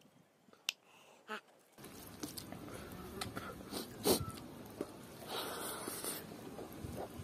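Close-up eating sounds: fingers squishing rice and pork curry together, with small wet mouth clicks and chewing. A few sharp clicks come over near silence at first, then a low background hiss comes up about two seconds in.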